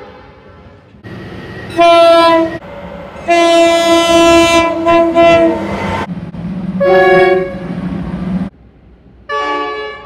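Diesel locomotive horns sounding in a string of blasts: a short blast about two seconds in, a long loud blast, another short blast, and a new horn starting near the end. A low engine rumble from passing locomotives sits under the later blasts.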